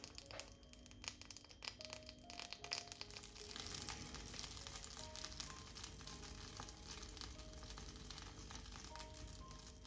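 Butter sizzling as it melts in a nonstick frying pan, a steady faint hiss, under light background music of short, separate notes.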